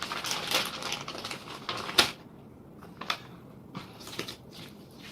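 Light clicks and rustling of small objects being handled on a work surface, busy for about two seconds, with one sharper click about two seconds in, then a few scattered clicks.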